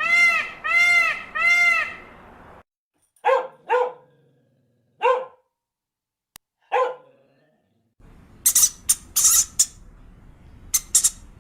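Different animals' calls one after another: a quick run of arching, pitched calls, then four short, separate calls with silent gaps between them, then a cluster of sharp, scratchy calls near the end.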